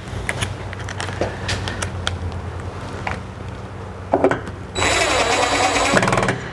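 Scattered clicks and knocks of parts being handled, then about five seconds in a cordless power driver whines for about a second, driving a screw into the tailgate trim panel. A low steady hum runs underneath.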